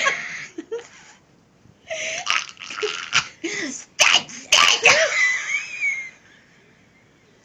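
Two women laughing hysterically in uncontrolled bursts and shrieks, loudest about four to five seconds in, then dying away to quiet near the end.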